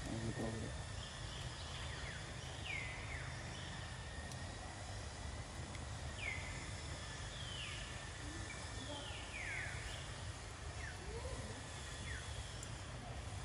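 Outdoor ambience with a steady background hiss and rumble, over which an animal gives about half a dozen short, high calls that drop sharply in pitch, scattered through.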